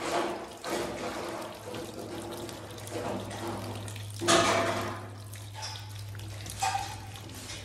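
Water running from a tap and splashing into a plastic bowl as tomatoes are washed by hand, with a louder splash about four seconds in. A steady low hum sits underneath.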